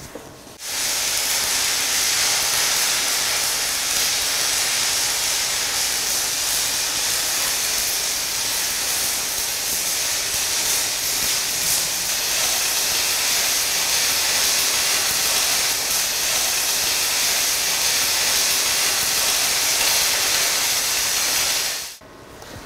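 Stick (MMA) welding arc from a PATON VDI-250P inverter at 230 amps, burning a 5 mm Paton Elite electrode on steel plate: a steady crackling hiss. It starts abruptly under a second in when the arc is struck and cuts off about a second before the end when the arc is broken.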